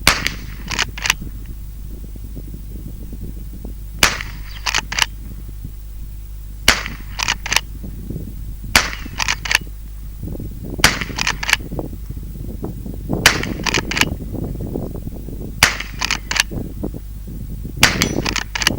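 Henry Youth .22LR lever-action rifle fired eight times, one shot every two seconds or so, each shot followed by two quick metallic clicks as the lever is worked down and back to chamber the next round.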